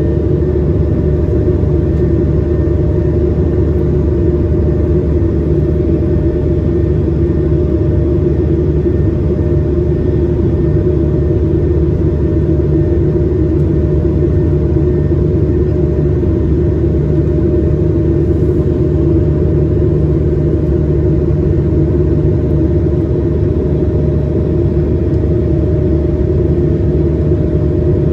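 Steady cabin noise inside an Airbus A220-300 in flight: the drone of its Pratt & Whitney PW1500G geared turbofans mixed with airflow rush, with a few steady engine tones. One tone edges slightly higher near the end.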